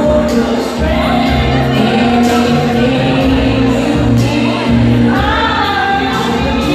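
Loud amplified music with a bass line and a woman singing into a handheld microphone over the backing track.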